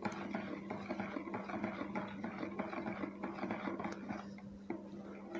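A metal spoon stirring water in a plastic bowl to dissolve salt, scraping and tapping against the bowl in quick irregular little strokes. A steady low hum runs underneath.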